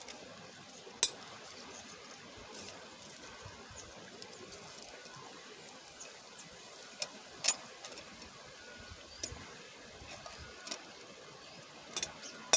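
A handful of sharp metallic clinks as small stainless-steel coffee pots and a metal cup are handled at a campfire, the loudest about a second in, over a faint steady hiss.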